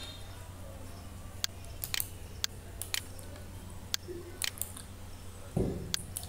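About ten scattered, sharp computer mouse clicks over a steady low hum, with a brief low thud a little before the end.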